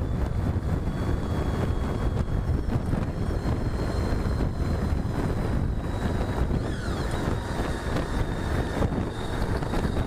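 Wind buffeting the microphone over steady road and engine noise from a moving motorcycle.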